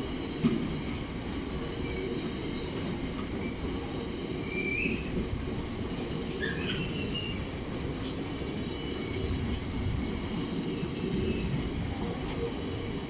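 Bogie oil tank wagons of a freight train rolling past at close range: a steady rumble of wheels on rail, with a sharp knock about half a second in and a few short wheel squeals around the middle.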